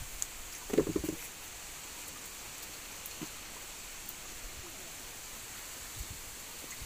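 Steady outdoor background hiss with a faint high steady tone throughout, and a brief louder sound about a second in.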